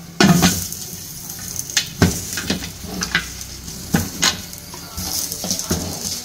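Aluminium pressure-cooker lid being fitted and twisted shut on the pot, with a string of metal knocks and clicks, over the steady sizzle of the masala frying inside.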